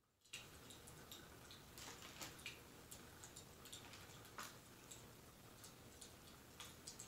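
Quiet crackling fireplace sound: a steady low hiss with irregular sharp pops and crackles, starting abruptly about a third of a second in.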